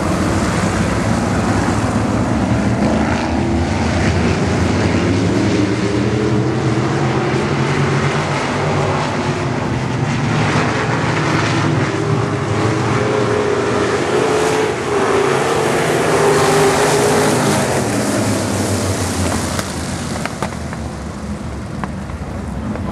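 A pack of IMCA 305 sprint cars with 305-cubic-inch V8 engines racing on a dirt oval, several engines running loud together and revving up and down. The engine note climbs about two-thirds of the way through, and the sound drops off a little near the end.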